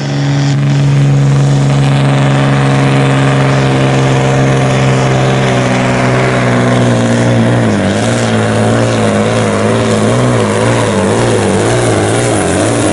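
Pulling truck's Volvo FH16 diesel engine, stroked to 18 litres, at high revs under full load while dragging the weight sled. It holds a steady pitch at first, then from about halfway through the pitch wavers up and down.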